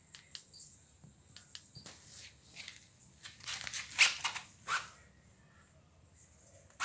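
Scattered light clicks, rustles and crackles of close handling, thickest around four seconds in, with a sharper click at the very end.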